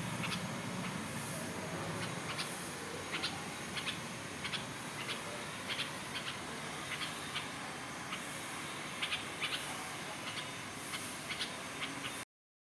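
A bird giving short, high chirps at irregular intervals, about one to three a second, over a steady background hiss. The sound cuts off abruptly near the end.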